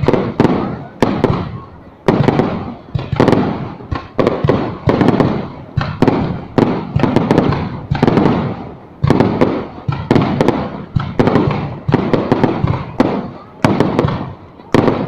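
Fireworks bursting in quick succession: sharp booms one or two a second, each with a rumbling tail, some overlapping.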